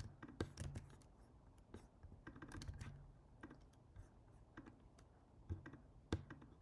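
Faint computer keyboard typing: three short runs of keystrokes and clicks with pauses between.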